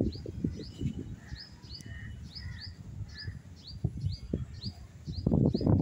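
Small birds chirping: a steady run of short, high, downward-falling chirps, two or three a second. Underneath is a low, gusty rumble that swells loudly near the end.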